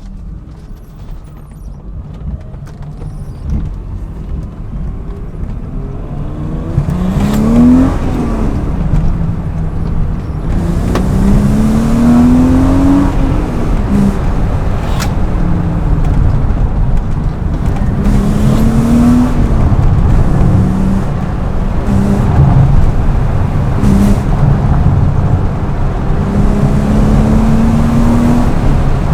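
BMW E36 M3's straight-six engine under hard acceleration, its pitch climbing and then dropping at each gear change, several times over, growing louder in the first several seconds.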